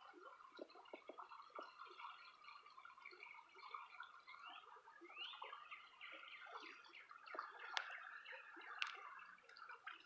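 Faint trickle of a small creek running over stones, with two short rising chirps around the middle and two sharp clicks near the end.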